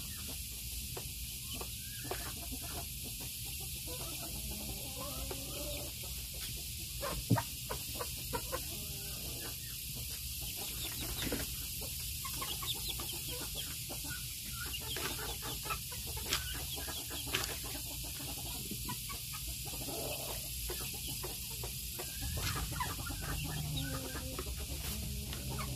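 Appenzeller Spitzhauben chickens clucking now and then over a steady background hiss, with one sharp click about seven seconds in.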